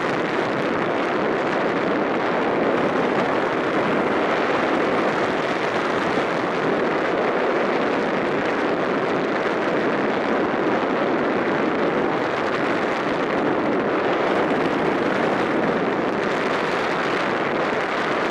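Steady rushing noise of wind and the moving boat, even and unbroken throughout.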